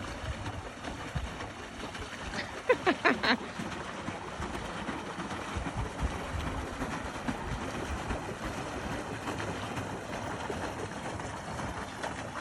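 Boat under way on the water: a steady rush of wind and water noise, with a quick run of four or five short, high squeaks about three seconds in.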